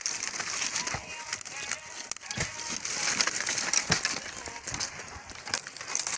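Dry sticks and brush crackling and snapping as they are handled and trodden on over snow, with a steady rustle and a few sharper cracks about one, two and a half, and four seconds in.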